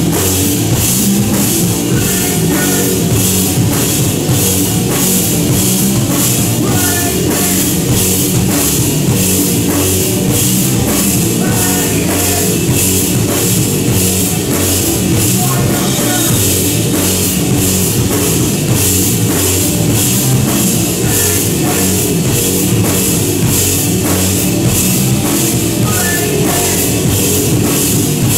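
Live grunge-noise rock band playing loud: distorted electric guitars over a full drum kit, with the cymbals struck on a steady beat about two times a second.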